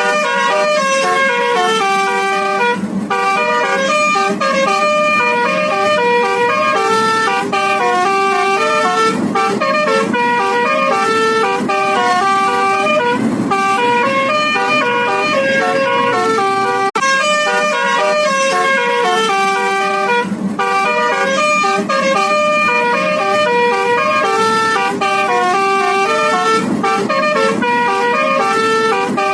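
Telolet basuri musical bus horn, several horn trumpets sounding a melody of held, stepped notes; the tune starts over about halfway through.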